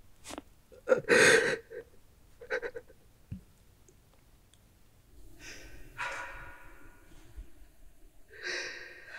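A person's heavy breathing and sighs: a few short, sharp breaths in the first three seconds, the loudest about a second in, then two longer sighing breaths, one around six seconds in and one near the end.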